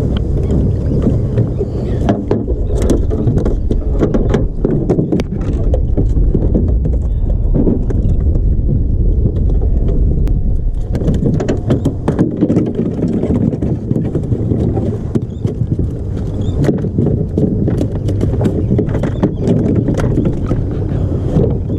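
A small fishing boat on the water: a loud, steady low rumble with frequent short knocks and clicks.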